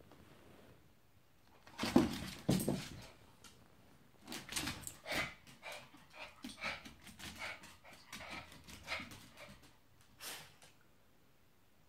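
Small dogs vocalizing in play: two loud short barks about two seconds in, then a string of short barks and yips for several seconds, with one more near the end.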